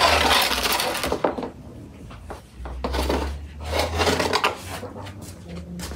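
Metal baking pan scraping across the stone floor of a wood-fired oven as it is dragged out, in two long scrapes, the second about four seconds in.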